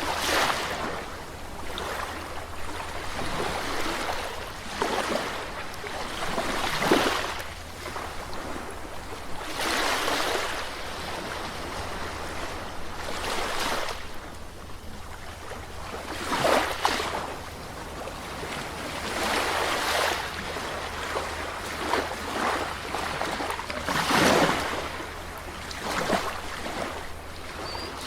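Sea waves breaking and washing up a shore, a new surge swelling and fading every few seconds over a steady low rumble.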